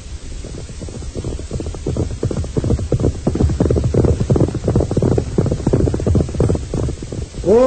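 Sound effect of horses' hooves drumming at a run, a dense patter of knocks that grows louder as the riders approach.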